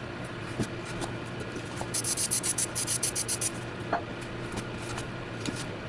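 Aerosol spray paint can in use: quick runs of short, sharp high-pitched bursts, about six a second, one long run in the middle, over a steady low hum.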